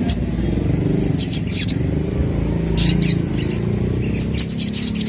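A young songbird calling in short, sharp, high chirps, coming thicker near the end, over a steady low engine-like rumble.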